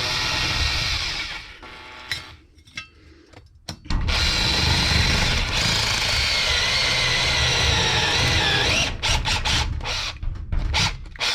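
Electric drill running in bursts: a short run at the start, then a long run of about five seconds whose whine wavers and sags near the end, then several short bursts.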